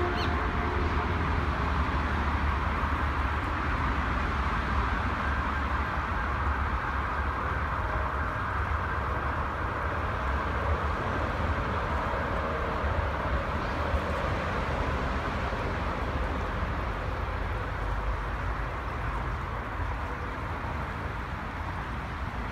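Shallow river water rippling steadily over stones, over a constant low rumble.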